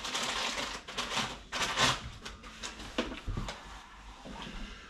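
Rustling and scattered clicks and knocks of things being handled, with one louder rustle just before two seconds in.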